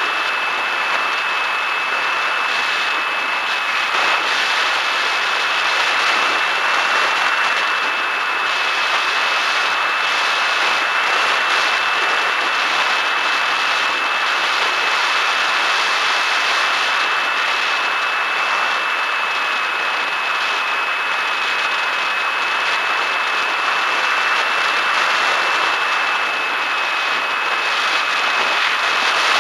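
Electric pusher motor and propeller of a Bixler 1.1 foam model plane, heard from its onboard camera in cruise: a steady high whine that wavers slightly in pitch as the throttle shifts, over a constant rush of wind.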